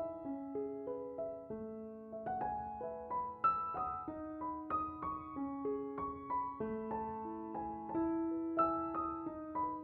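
Background music: a slow, gentle piano melody of sustained notes over held bass notes.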